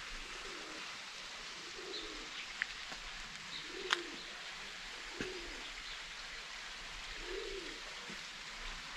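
Pigeon cooing: low coos repeating every second or two over a steady hiss, with a sharp click about four seconds in.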